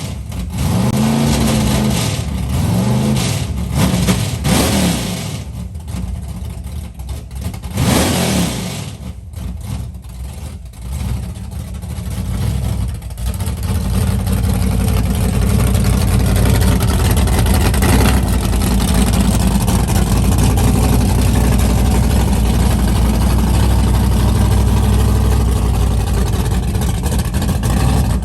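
Big-block Ford V8 in a Lincoln revved in several quick blips, each rising and falling in pitch, over the first several seconds. From about halfway through it runs steadily and loud at a constant speed.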